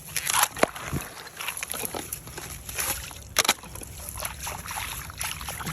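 Footsteps crunching and sloshing through wet snow and slush, an irregular run of short crunches and scrapes.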